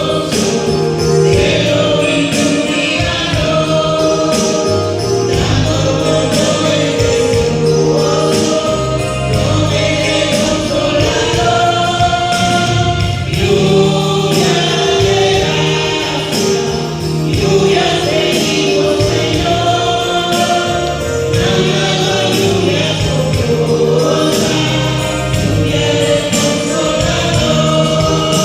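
A choir singing a Pentecostal hymn with full band accompaniment and a steady percussive beat.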